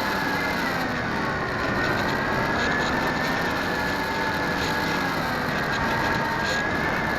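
Small electric RC airplane's motor and propeller running with a steady high whine that wavers slightly in pitch, over a rush of air noise.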